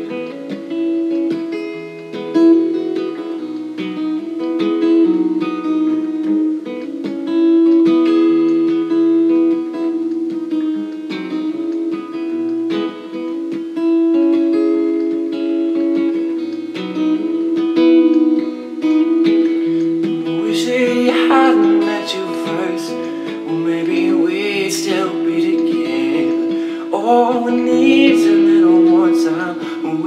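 Acoustic guitar playing a steady song intro. A man's singing voice joins about twenty seconds in, over the guitar.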